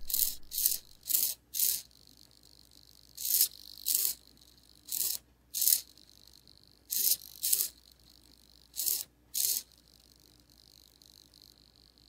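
Small blue hobby servo motor whirring in short bursts, about a dozen, mostly in pairs, as it swings one way and back under joystick control.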